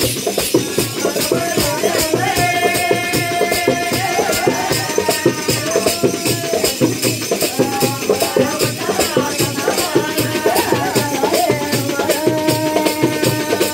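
Folk dance music: fast, steady drumming on a barrel drum with jingling rattle-like percussion, under a held, wavering melody line.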